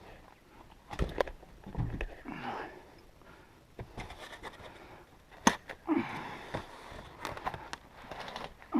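Knocks, scrapes and rustles from handling the boxed rooftop tent and its cardboard packaging. There are several thuds in the first two seconds, a sharp click about halfway through and longer scraping later on.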